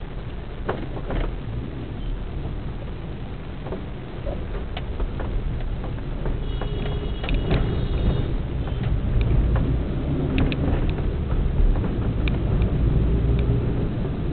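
Steady low rumble of a vehicle riding through city traffic, growing louder after about four seconds, with scattered small knocks and a brief high-pitched beep about six and a half seconds in.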